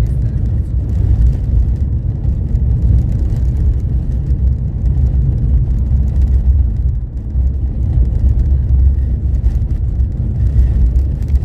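Steady low rumble of a car driving at about 35 mph on a snow-covered highway, heard inside the cabin: road, tyre and engine noise.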